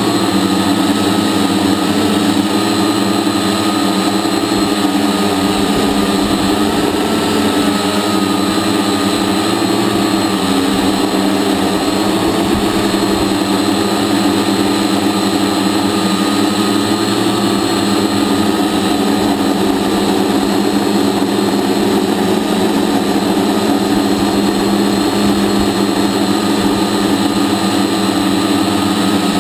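A hexacopter's electric motors and propellers running steadily in flight, heard up close from the onboard camera, with a whine that wavers slightly in pitch.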